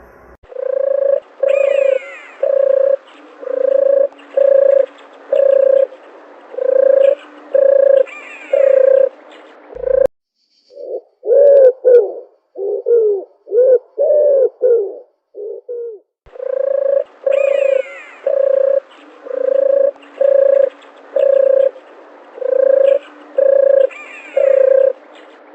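Dove cooing: a long run of evenly spaced low coos, about one and a half a second. About ten seconds in it breaks off for a few seconds of quicker coos that bend up and down in pitch, then the even series resumes.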